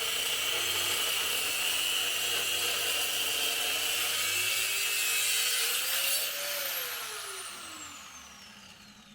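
Power cutting tool running steadily as it cuts through a section of exhaust pipe, then released and winding down, its whine falling in pitch and fading over the last few seconds.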